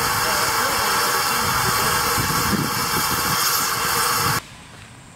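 Steam hissing steadily from the John Molson, a 2-2-2 replica steam locomotive standing in steam; the hiss cuts off suddenly near the end.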